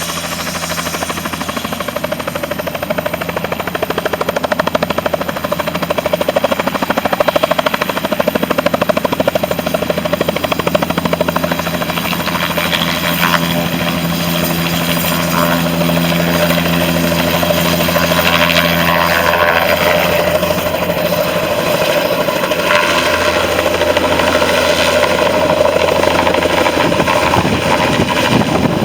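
Air ambulance helicopter taking off: turbine whine and rapid blade chop, growing louder over the first several seconds, then holding steady.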